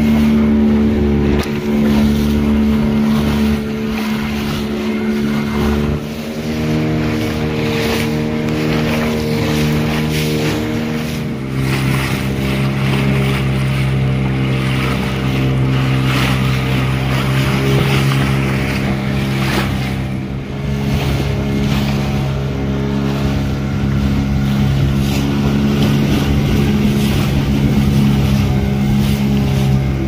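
Vehicle engine running steadily with wind and road noise, its pitch changing about six seconds in and dropping lower about eleven seconds in.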